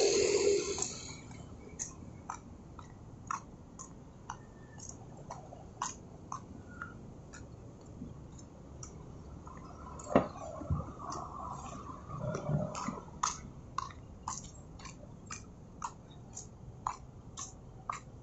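Footsteps on a concrete sidewalk, sharp regular steps about two a second, over faint traffic noise. About ten seconds in, a louder vehicle sound rises for a few seconds and fades.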